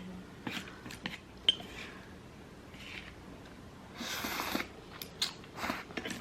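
Eating sounds: scattered light clicks and taps of cutlery and dishes, with a short rustling hiss about four seconds in.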